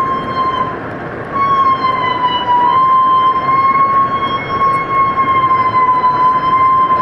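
Humpback whale feeding call: one long, steady, high tone with overtones and a slight waver in pitch, breaking off briefly about a second in and then held. A steady hiss lies under it.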